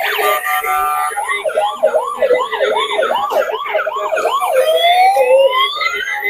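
Electronic toy siren, a quick warbling yelp going up and down about three times a second. About four and a half seconds in it changes to a slow wail that rises in pitch.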